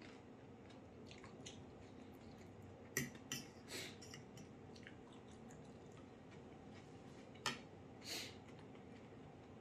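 A metal fork clinking and scraping on a ceramic plate: two sharp clinks and a short scrape about three seconds in, then one clink and a scrape about seven and a half seconds in. Faint small eating sounds lie between them.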